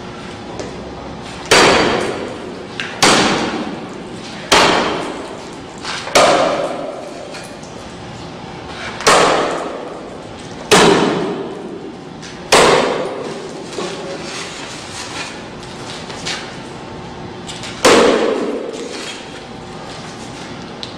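A heavy axe striking a panel of security glass eight times. Each blow is a sharp crack that rings and fades over about a second. The first seven blows come about every one and a half to two seconds, and the last follows a pause of about five seconds.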